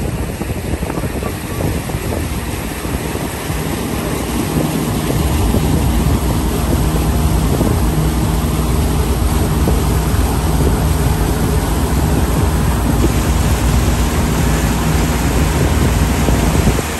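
Fishing boat's motor running under way, picking up speed about three to four seconds in and then holding steady, with wind buffeting the microphone and water rushing past the hull.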